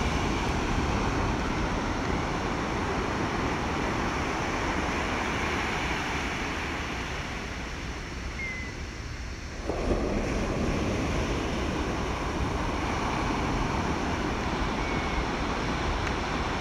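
Steady rushing of wind and surf on an outdoor microphone. It thins out for a couple of seconds past the middle and comes back suddenly about ten seconds in.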